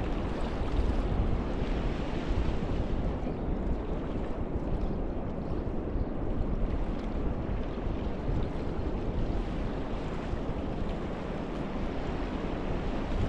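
Small waves washing onto a sandy beach, with wind rumbling on the microphone; a steady, unbroken rush with no pauses.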